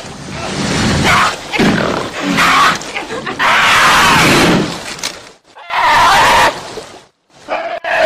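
A brown bear and a cougar fighting: a string of loud roars, growls and hissing snarls, broken by two brief silences in the second half.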